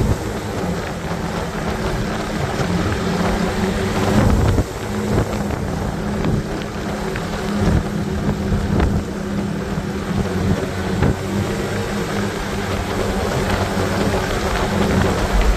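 Motorcycle engine running at steady cruising revs, heavily overlaid by wind rumbling and buffeting on the microphone at road speed.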